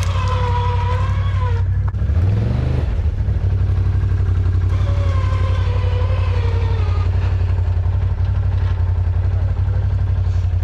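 ATV engine running steadily, revved up briefly about two seconds in. A wavering higher whine sounds over it twice.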